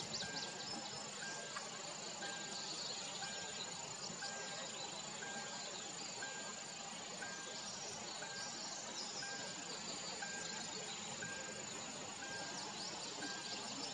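Marsh ambience of insects trilling and buzzing steadily, with scattered quick high chirps and a short, even note repeating about once a second.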